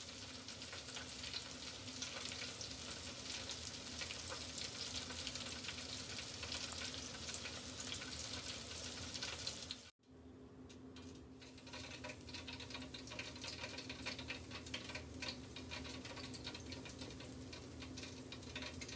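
Hot oil sizzling and crackling in an electric deep fryer as breaded corn on the cob fries, with a steady low hum underneath. The sound cuts out briefly about halfway, then the crackling builds again as breaded chicken wings fry.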